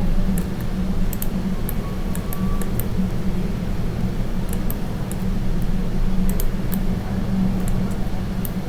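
Steady low hum from the recording setup, with scattered light clicks of a computer mouse and keyboard being worked.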